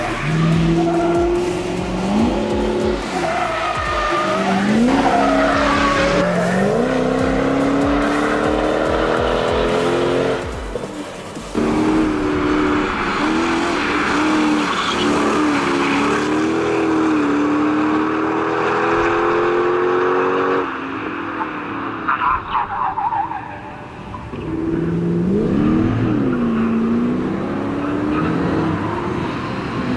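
Mercedes-Benz SL500 (R129) with its M119 V8 being driven hard in slides, the engine's pitch climbing and dropping as the revs rise and fall, with tyres squealing. The sound cuts off abruptly a few times.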